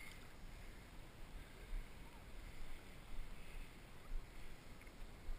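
Faint, muffled sloshing of shallow sea water as a person wades, with a few soft bumps.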